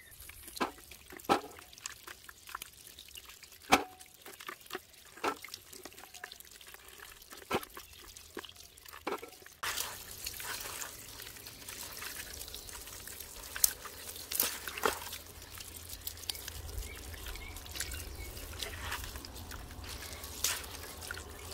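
Green baby pine cones being washed in water by hand. First come scattered drips and small clicks, then from about halfway through a steady trickle of running water with splashes.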